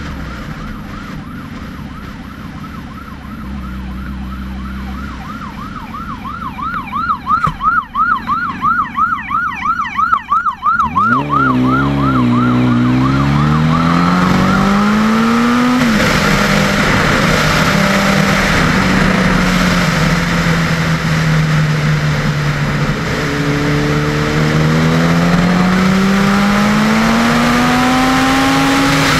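A police siren sounding a fast yelp, over a sport motorcycle's engine running low. The siren then cuts out as the engine revs up hard under acceleration, drops at a gear shift, and climbs again near the end.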